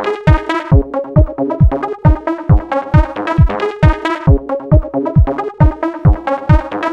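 Electronic dance music: a steady kick drum at about two beats a second under repeating synthesizer chords.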